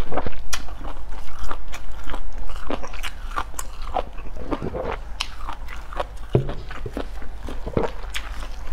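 Close-miked chewing of beef tripe: wet, crunchy clicks and snaps, loudest in the first three seconds. After that come softer sticky squelches and clicks as the tripe, coated in sesame sauce, is handled.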